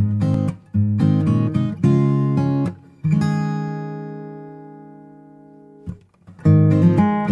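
Acoustic guitar music, strummed chords. About three seconds in, one chord is left ringing and slowly fades, then the strumming starts again near the end.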